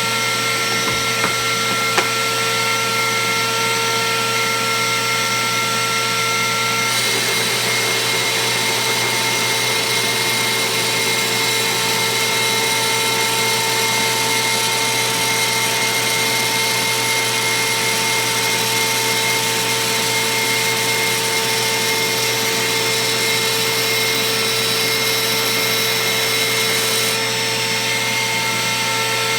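Router running steadily at high speed with a fixed whine, fitted with a 1/8" single O-flute down-spiral bit. About seven seconds in, its pitch dips slightly and a brighter hissing cut is added. This lasts until a couple of seconds before the end, when the bit is taking a light finishing pass through acrylic.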